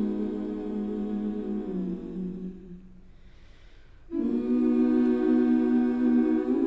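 Background music: a cappella vocal harmony, several voices holding long hummed chords. The music fades low about two and a half seconds in and swells back with a new chord about four seconds in.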